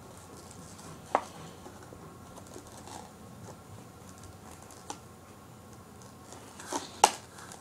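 Cardboard toy packaging being handled and cut open: a few scattered sharp clicks and scrapes, the loudest near the end.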